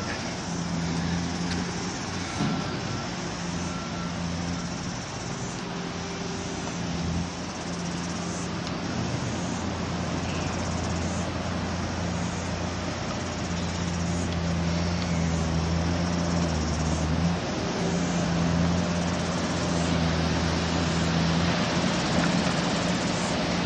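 A vehicle engine running steadily with a low hum over a steady background hiss; the deepest part of the hum drops away about three-quarters of the way through.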